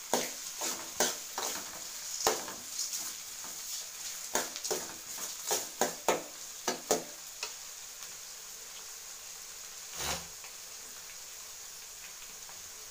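Steel ladle scraping and knocking against an aluminium kadai while stirring chopped onions and tomatoes frying in oil, over a steady sizzle. The stirring stops about seven seconds in, followed by one more knock, and the sizzle carries on alone.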